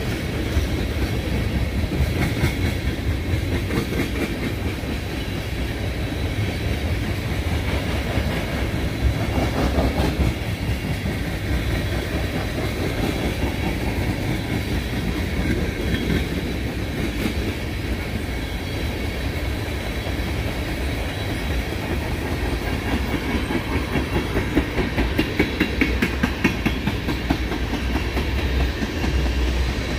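Tank cars of a long freight oil train rolling past: a steady rumble of steel wheels on rail with clickety-clack over the rail joints, the clicks coming sharper and more regular near the end.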